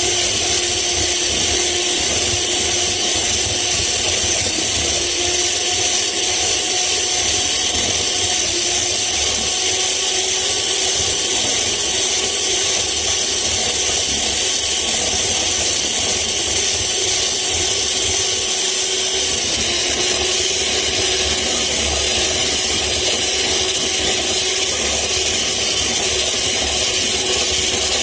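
Handheld electric mixer running steadily, its beaters whipping cream in a glass bowl: an even motor whine over a hiss.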